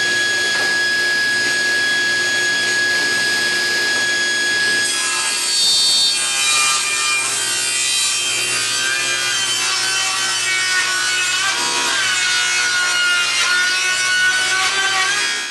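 Table saw with a ripping blade, guard removed, running at full speed with a steady whine. About five seconds in it starts cutting a deep rabbet along a board: the sound thickens and the whine wavers and dips in pitch under load.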